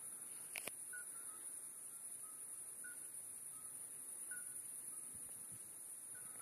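Steady high-pitched trilling of insects such as crickets, with short soft piping notes repeating about once a second at two slightly different pitches, and a couple of faint clicks less than a second in.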